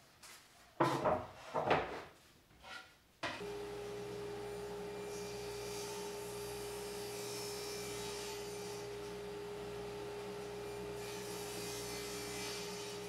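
A few knocks of plywood pieces being set down and handled on a saw table, then about three seconds in a table saw's motor comes on and runs as a steady hum with one constant tone.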